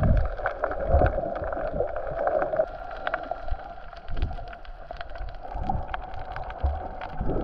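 A motorboat's engine running at a steady pitch, with irregular low thumps.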